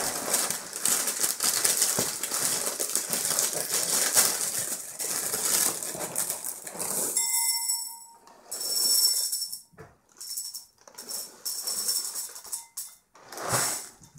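Plastic cereal bag crinkling and rustling as it is pulled open. About halfway through, dry chocolate wheat-and-rice cereal pieces pour and rattle into a bowl in several short bursts.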